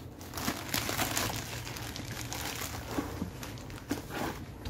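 Cardboard box and plastic wrapping being handled as a boxed kitchen container is unpacked: crinkling and rustling, with a few sharp knocks and clicks.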